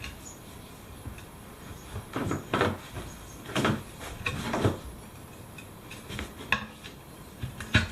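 Steel tyre levers and a stiff old tyre bead scraping and knocking against a rusty steel wheel rim as the tyre is forced off. There are four short scrapes in the middle, then a few sharp metallic clicks.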